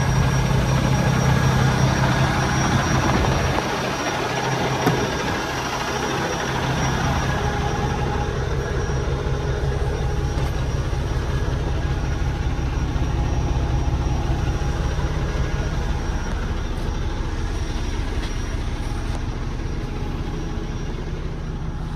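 Freightliner Cascadia semi truck's diesel engine idling steadily, a low hum that turns duller a few seconds in as it is heard from inside the cab. A single knock comes about five seconds in.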